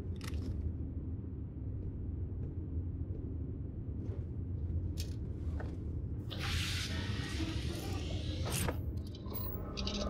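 Video game sound: a steady low rumble with a few sharp hits, and a brief noisy burst about two-thirds of the way through.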